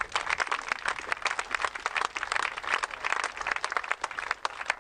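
Crowd applauding: many hands clapping in a dense, irregular patter that thins out a little near the end.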